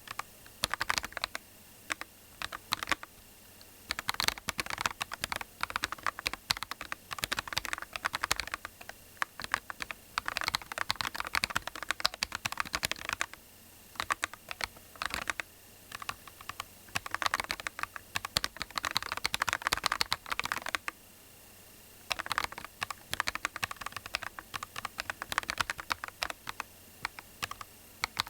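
Typing on a cocot38mini split mechanical keyboard in its integrated-mount build: quick runs of key clicks and clacks, stopping briefly three times.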